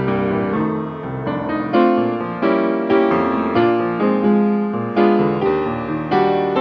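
Grand piano played solo: chords and melody notes struck about once or twice a second, each ringing and fading before the next.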